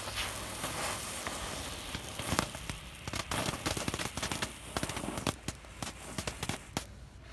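Ground fireworks spraying sparks: a steady hiss, then from about two seconds in a rapid run of sharp crackling pops that thins out near the end.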